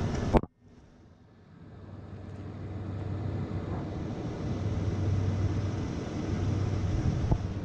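2000 Toyota 4Runner's engine idling, a steady low hum. The sound drops out suddenly about half a second in and fades back up over the next two seconds.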